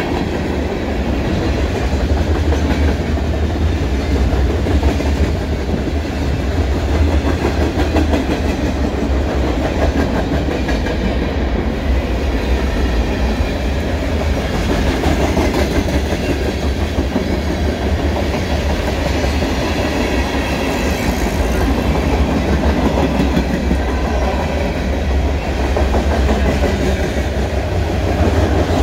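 Long freight train of tank cars and covered hopper cars rolling past: a loud, steady low rumble with rapid clatter of the wheels over the rails.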